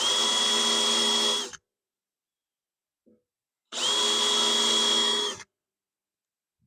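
Electric drill with a tiny bit starting pilot holes, run in two bursts of about a second and a half each. Each burst carries a steady motor whine that spins up at the start and winds down when the trigger is released.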